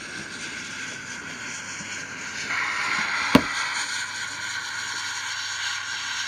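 Model 0-6-0 steam tender locomotive running along the track, a steady whirr of its motor and wheels that grows louder about two and a half seconds in as it comes close, with one sharp click a little over three seconds in.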